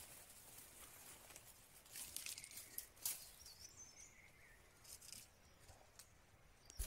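Near silence: faint forest ambience with a few soft rustles and a couple of faint, brief chirps.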